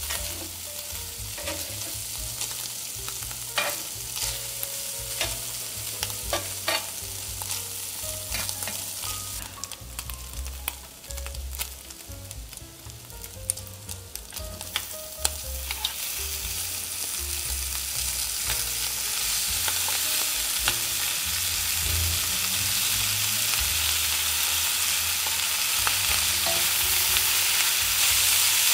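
Chopped meat frying in a pan, sizzling, while a utensil stirs and scrapes it with sharp clicks and taps against the pan. The sizzle grows steadily louder through the second half.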